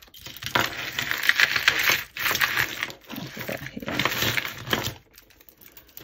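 A tangled pile of costume jewellery (metal chains, beads and earrings) clinking and jangling as hands rummage through it, a dense run of small clicks that dies away about five seconds in.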